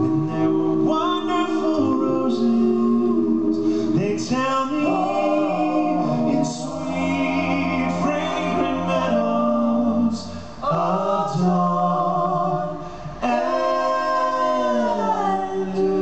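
Several voices singing a slow ballad together in close harmony on long held notes. Near the end the voices slide down together onto a closing chord.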